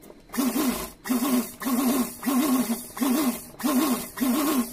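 Sewing machine stitching fabric in about seven short, evenly spaced runs, a wavering whine with a rattle in each run.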